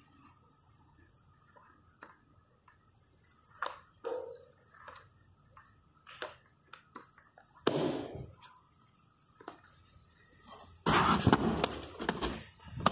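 Pages of a large hardcover book turning, with soft paper rustles and light taps. About two-thirds of the way through there is a louder page flip. Near the end comes a loud, sustained scraping rustle as the heavy book is pushed down against the cardboard of a box.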